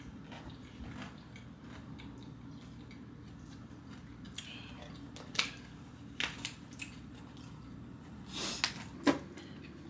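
Eating sounds over a steady low room hum: a handful of short, sharp clicks and crunches, mostly in the second half, the loudest about nine seconds in.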